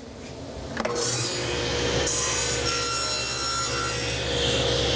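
Table saw cutting a 45° bevel along a thin wooden strip to form a rabbet miter, the blade set slightly too high so it cuts into the wood. The loud cutting noise starts suddenly about a second in over the steady hum of the saw and runs on.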